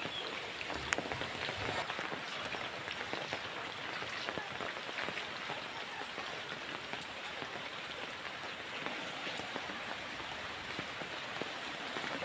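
Steady rain falling on wet foliage: an even hiss with many small, scattered drop ticks.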